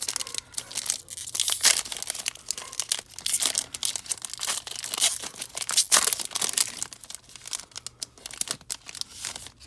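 A pack of trading cards being torn open and its wrapper crinkled by hand: a dense, irregular run of crackles that dies away near the end.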